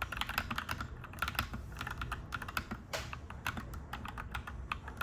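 Clacky mechanical keyboard being typed on steadily, several keystrokes a second in an uneven rhythm, over a low steady background hum.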